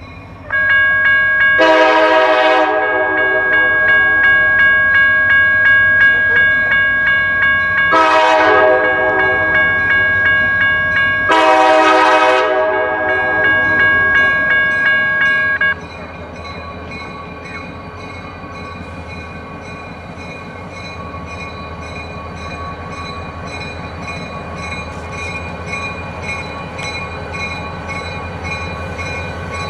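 Horn of Buckingham Branch EMD GP40-2 diesel locomotive No. 13, a multi-note chord sounding for about fifteen seconds and swelling afresh twice before it cuts off sharply. Then the diesel engines of the GP40-2 and the GP38-2 trailing it run as a steady rumble that grows slowly louder as the locomotives draw closer.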